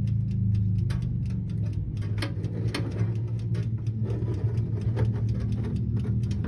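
Light clicks and taps as cupcakes in a small metal pan are set onto the rack of a hot oven toaster, over a steady low hum.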